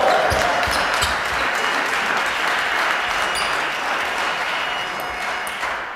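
Spectators clapping after a point in a table tennis match, a steady spell of applause that starts suddenly and dies away near the end.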